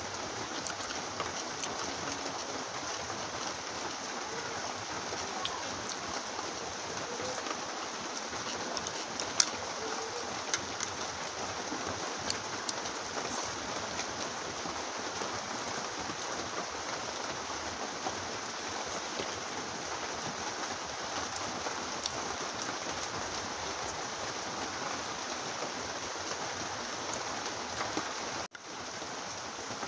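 Steady heavy rain falling, an even hiss with a few sharp clicks over it.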